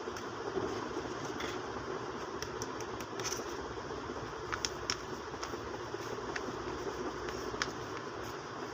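Steady background hum and hiss with scattered light clicks and taps.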